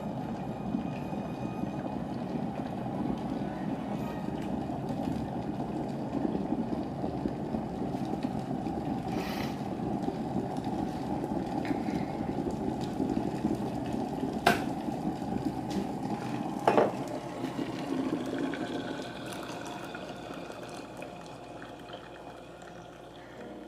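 Kettle heating water toward the boil, a steady rumbling hiss, with two sharp clicks in the second half; the noise dies down about 19 seconds in.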